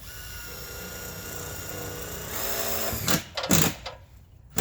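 Cordless drill driving roofing screws into metal roof panels: the motor whines steadily for about three seconds, then a few loud knocks.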